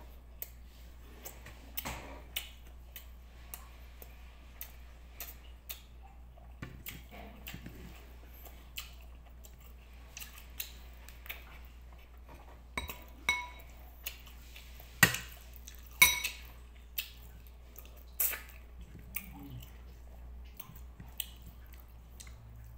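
Scattered clicks and clinks of a spoon and fingers against a ceramic plate while eating by hand, a few of them ringing briefly. The loudest clinks come in the second half.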